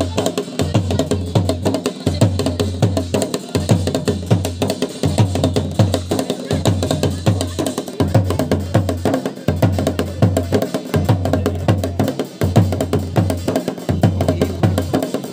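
Fast, driving drumming of jagar ritual music: dense rapid strokes over a repeating low beat.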